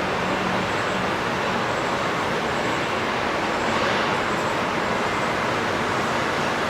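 Steady outdoor rushing noise at an even level, with faint, high, repeated chirps of small birds over it.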